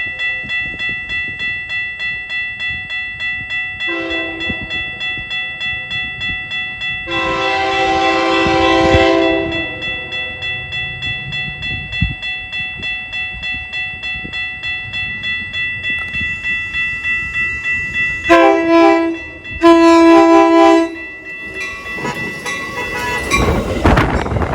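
A Metra train's multi-note air horn sounds over a bell ringing steadily about twice a second: a short blast about four seconds in, a long blast around seven to nine seconds, then two long blasts close together near the end. After the horn the rolling noise of the arriving train rises.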